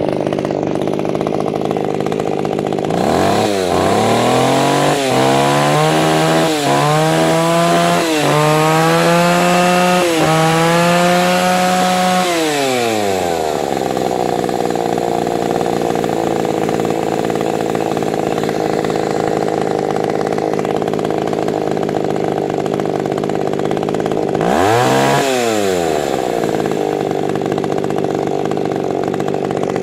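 Circa-1980 Kioritz Echo CS-315 chainsaw's 30 cc two-stroke engine idling, then revved in about five quick throttle blips, each climbing higher, held briefly at high revs and dropped back to idle. One more short rev comes later.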